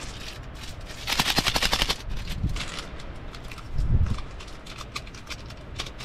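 Plastic instant-noodle seasoning packet crackling sharply for about a second as it is torn open, then crinkling lightly as the powder is shaken into the pot; a dull bump a little past the middle.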